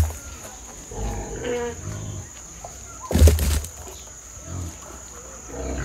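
A few short farm-animal calls, with a loud thump or rustle about three seconds in, over a steady high-pitched tone.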